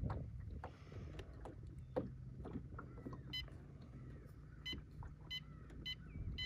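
Steady low hum of the Minn Kota Ultrex trolling motor running on spot lock, holding position. In the second half, about five short electronic beeps come from the Humminbird Helix 10 as its menu buttons are pressed.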